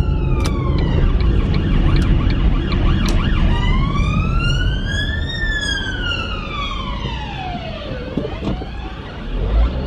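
Emergency-vehicle siren wailing, heard from inside a moving car over the low rumble of road noise: one slow fall ending about a second in, then a new rise from about three and a half seconds in that peaks and falls away until about eight seconds in.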